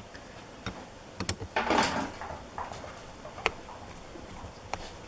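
Brake caliper cover and its screws being fitted by hand: scattered light clicks and taps of small metal parts, with a brief scraping rustle about a second and a half in.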